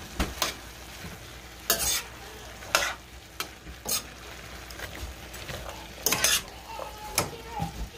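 A metal spoon stirring diced potatoes into ground beef and carrots in a stainless steel pan, scraping and clinking against the pan about ten times at uneven intervals, over the steady sizzle of the mixture cooking.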